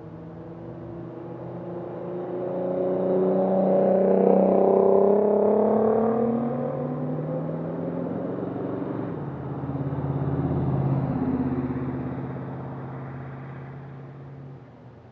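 Two road vehicles driving past, one after the other. The first grows loud and climbs in pitch as it accelerates, loudest about four to five seconds in; the second passes close around eleven seconds and fades away near the end.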